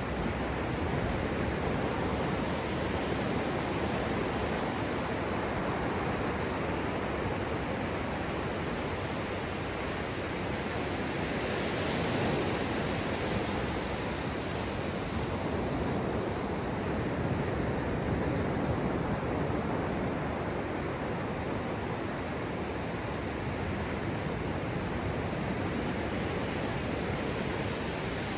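Ocean surf heard from right at the water's edge: small waves breaking and washing up the sand in a continuous rush that swells and eases gently.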